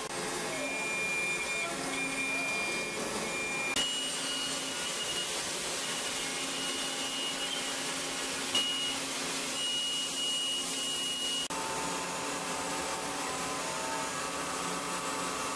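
CNC machining centre milling a mold core with an end mill under coolant spray: a steady high-pitched spindle and cutting whine over a hiss of spray. The tone shifts abruptly about four seconds in and again about eleven and a half seconds in.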